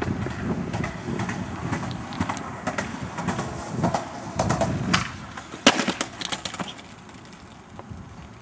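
Skateboard wheels rolling over asphalt, then a sharp clack of the board hitting the ground a little past halfway, followed by a few smaller clatters as it settles. The board has come loose from the skater in a bail.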